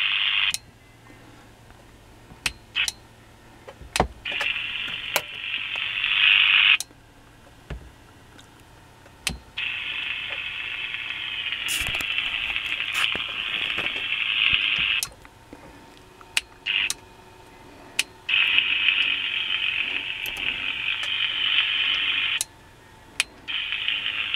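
Hiss from a radio receiver's speaker cutting in and out abruptly about five times. Sharp clicks sound in the quieter gaps between.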